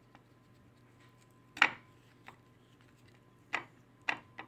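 A few short, sharp clicks and taps from bread and dishes being handled at the table, the loudest about one and a half seconds in and a quick pair near the end, over a faint steady electrical hum.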